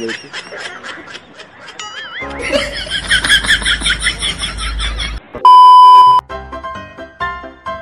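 Edited-in comedy sound effects: a wavering pitched effect with a deep rumble under it, then a loud steady beep tone lasting under a second about five and a half seconds in, followed by a short plinking keyboard tune.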